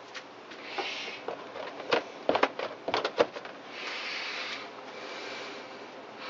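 A stainless steel applicator tool spreading epoxy paste over a crack in a plastic snow shovel blade. It makes soft scraping strokes, with a quick cluster of sharp taps and clicks in the middle.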